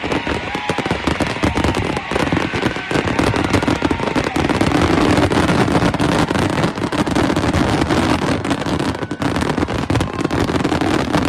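Fireworks barrage: many shells bursting and crackling over one another in a continuous, unbroken volley, a little louder around the middle.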